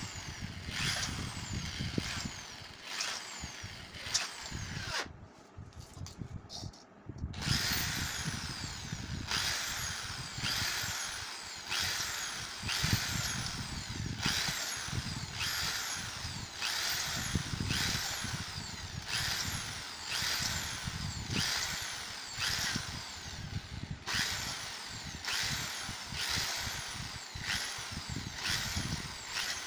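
Corded electric drill drilling small holes in the plastic dome of a dead LED bulb, run in short repeated bursts about once a second. Each burst ends in a falling whine as the drill winds down, with a brief pause about a quarter of the way through.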